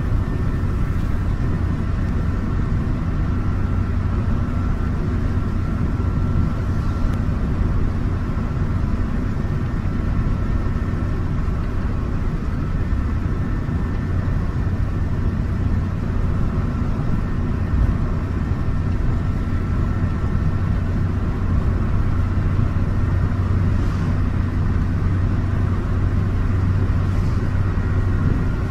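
Suzuki FX hatchback heard from inside the cabin while driven flat out near its top speed: a steady engine drone mixed with road and wind noise, with a thin, steady whine above it.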